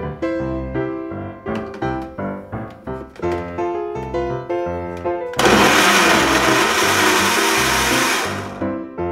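Small VEGEE bottle-style personal blender switching on about halfway through and running for about three seconds, puréeing chunks of onion in fish sauce, then cutting off suddenly near the end. Light piano background music plays throughout.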